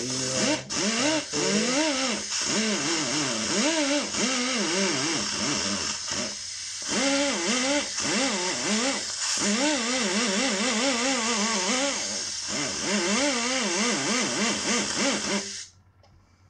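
Power drill spinning a Scotch-Brite surface-conditioning disc against the aluminium cylinder mating surface of a motorcycle engine's crankcase, scrubbing off gasket residue. Its pitch keeps rising and falling as the disc is pressed and eased, and it stops about a second before the end.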